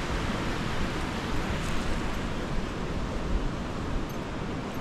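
Steady rush of a fast-flowing mountain creek.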